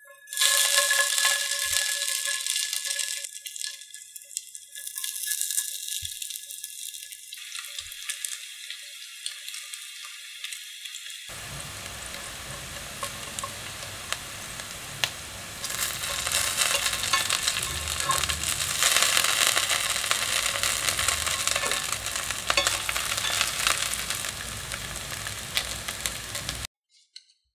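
Shredded taro patties sizzling and crackling as they fry in oil in a stainless steel pan. The sizzle grows fuller about eleven seconds in and cuts off suddenly near the end.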